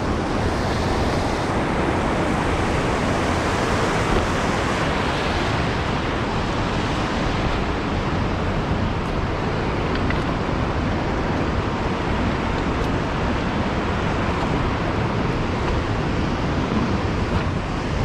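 Steady loud rush of a large waterfall and its falling water, an even roar with no break.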